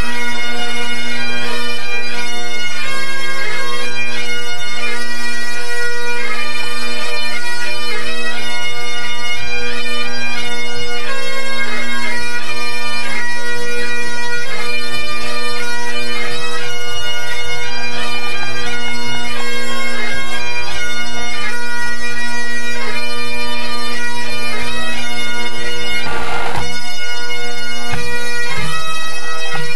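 A pipe band's Great Highland bagpipes playing together over their steady drones as the band tunes up. A brief noise cuts across the sound near the end.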